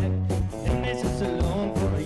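Live country band playing: strummed acoustic guitar and fiddle over electric bass and a drum kit keeping a steady beat.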